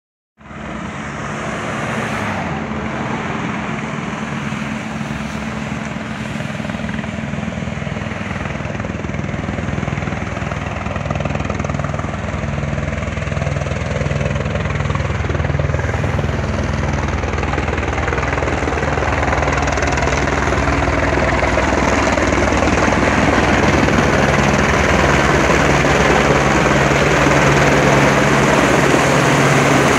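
AS350 B3 Esquilo helicopter's main rotor and single turbine engine, with a steady rotor chop that grows gradually louder as the helicopter approaches to land and comes overhead.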